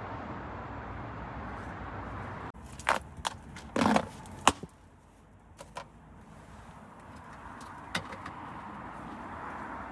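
A steady background rumble that drops away abruptly, followed by a run of sharp clicks and knocks with a short clatter among them. The background noise then slowly builds back up.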